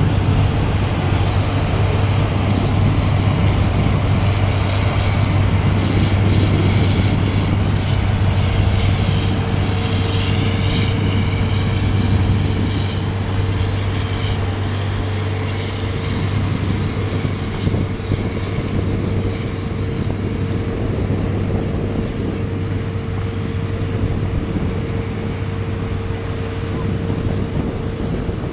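Motorboat engine running with a steady low drone. A higher steady tone joins about eight seconds in.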